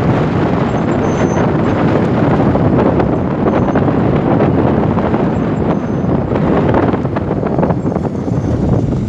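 Wind buffeting the microphone aboard a sailing yacht: a loud, steady, rumbling rush of noise.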